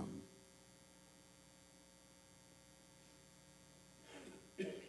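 Near silence with a steady electrical mains hum; a brief, faint vocal sound near the end.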